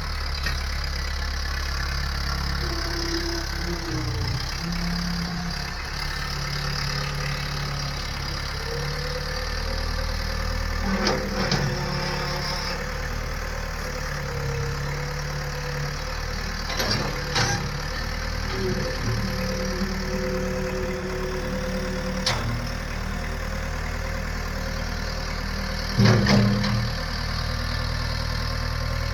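The engine of a piece of farm or construction equipment idling steadily. A few brief sharp sounds come through it, the loudest near the end.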